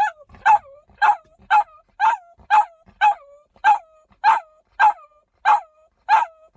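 A dog barking inside a parked car, a steady run of sharp barks about two a second, each trailing off in a short falling whine. The barking is set off by the car stopping at the end of a drive, which the owner takes for fear of being left alone.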